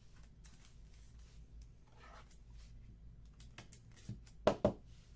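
Trading cards being handled: faint rustling and light ticks, then a few sharper clicks about four seconds in.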